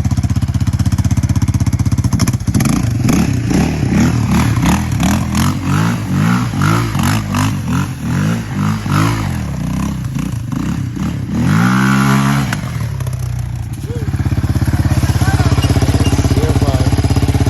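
Yamaha Raptor 700 ATV's single-cylinder engine revving up and down repeatedly during donuts, with one sharp rev about twelve seconds in, then holding a steady note near the end.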